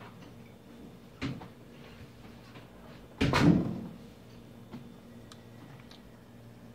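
A light knock about a second in, then a louder thud lasting about half a second about three seconds in, over a faint steady hum.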